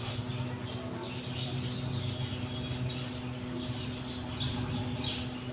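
Mongooses squeaking in short high chirps, a few a second, while one mounts the other in mating, over a steady low hum.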